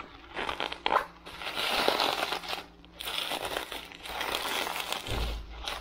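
Bubble wrap crinkling and rustling in irregular bursts as a box is slid out of it by hand, with a brief low bump near the end.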